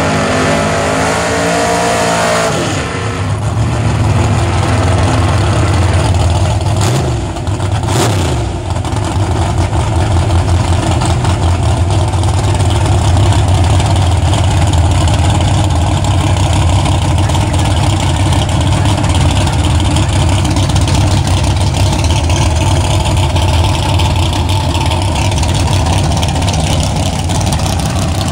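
Drag-car engine revving with rising pitch for the first couple of seconds, then a loud, steady low engine rumble for the rest, broken by a brief dip and a sharp crack about eight seconds in.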